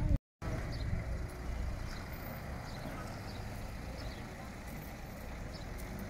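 A car engine running at low speed, a steady low rumble, with faint short high chirps over it. The sound cuts out for a moment just after the start.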